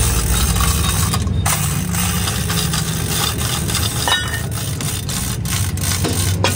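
Steady low engine hum under scattered metallic clinks and knocks of steel tools and a hoist chain being handled, with a short metallic ring about four seconds in.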